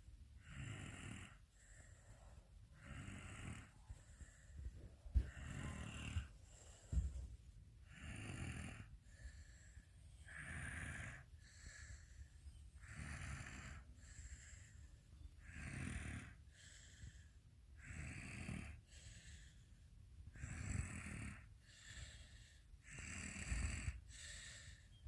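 A sleeping child snoring, a snore with each breath about every two and a half seconds. Two short knocks about five and seven seconds in.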